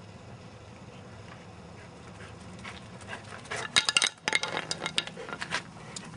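A Labrador's collar tags jingling and clinking in a quick run of sharp metallic clicks and rattles, starting about three and a half seconds in and lasting about two seconds, over a steady low hum.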